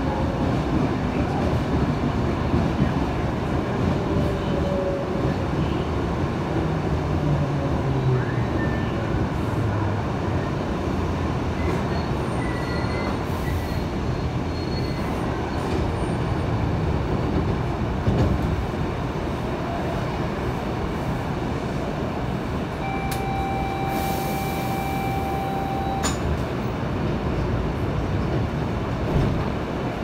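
Trensurb electric commuter train running, a steady rumble and rattle heard from inside the carriage. About 23 seconds in, a high steady tone holds for about three seconds.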